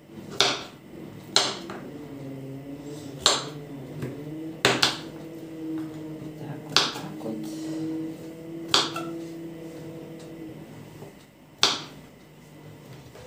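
Kitchen knife chopping raw pumpkin into cubes on a wooden cutting board: about eight sharp knocks of the blade against the board, spaced unevenly, a second or two apart.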